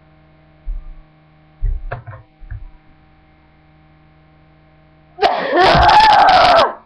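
A few soft low thumps, then about five seconds in a person's very loud yell, rising and falling in pitch for about a second and a half and distorting the microphone.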